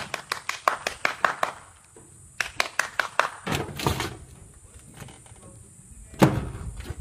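Metal body of a vehicle being battered by an African elephant bull pushing it with its tusks: quick runs of sharp metallic knocks, a heavier crunch past the middle, and one loud heavy bang near the end.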